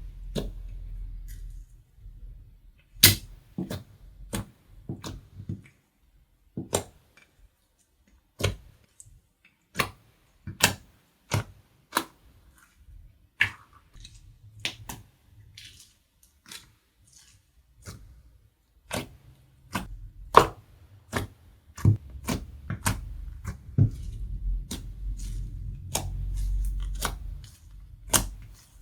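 Slime being squeezed and stretched by hand, giving irregular sharp clicks and pops over a low handling rumble.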